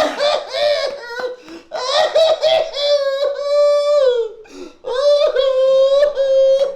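A person's voice crying out in high-pitched, drawn-out wails, four in a row with short breaks. The last two are held for over a second each, and the third falls in pitch as it ends.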